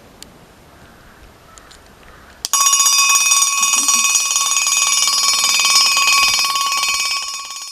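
Homemade security alarm going off: after a couple of faint clicks, a loud, shrill, rapidly pulsing electric ringing starts suddenly about two and a half seconds in and keeps going for about five seconds, easing off slightly near the end.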